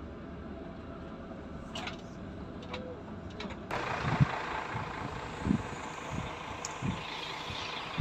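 A steady low rumble, then about four seconds in a sudden switch to a wide hiss with irregular low thumps, typical of wind buffeting a microphone.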